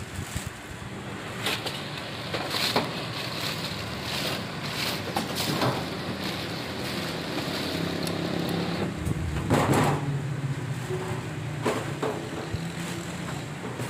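Plastic wrapping crinkling and a few light knocks as an electric demolition hammer is unpacked and handled, over a steady low background hum.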